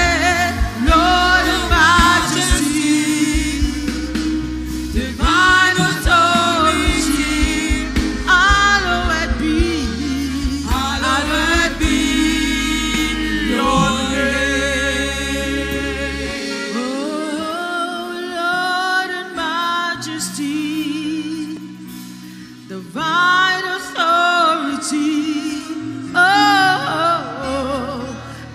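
Live gospel worship song: a lead vocal holds long, wavering notes over keyboard and bass accompaniment. The bass drops away about halfway through and comes back a few seconds later.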